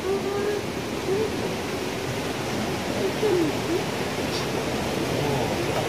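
A steady rushing noise, with faint distant voices over it.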